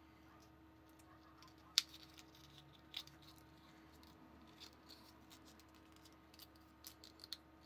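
Faint handling of a thin printed cardboard cut-out being folded by hand: small crinkles and clicks, with a sharper click about two seconds in and another about three seconds in, over a faint steady hum.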